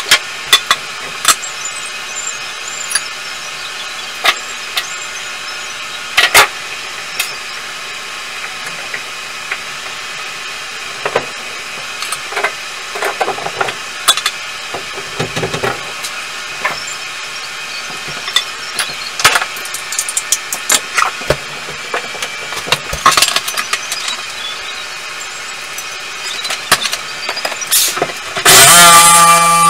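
Scattered knocks, clicks and scrapes of hand work on a bathtub surround over a steady background hum. Near the end a corded power tool starts up and runs loudly, its pitch wavering.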